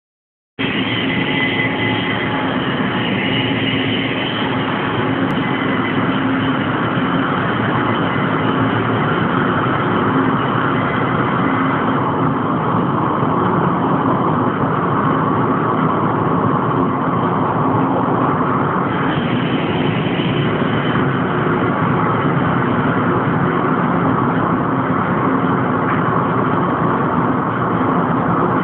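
Machinery of an offshore oil and gas platform running: a loud, steady drone with a few constant whining tones.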